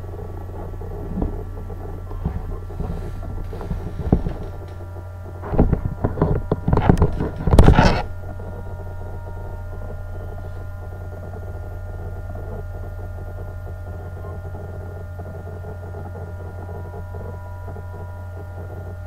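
Steady electrical hum with several steady higher tones laid over it, the drive of the rotating tank turning at about 10 RPM. In the first eight seconds a string of knocks and rustles comes through, loudest about seven to eight seconds in.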